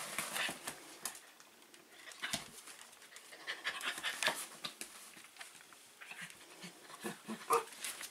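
Shetland sheepdogs, an adult and a young puppy, playing: panting and paws scuffling, in short spells with quieter moments between.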